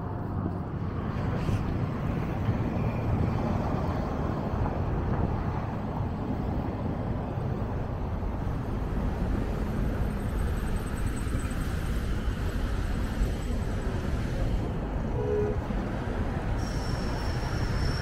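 Road traffic on a busy city street: cars and a bus passing, over a steady low rumble of wind on the microphone.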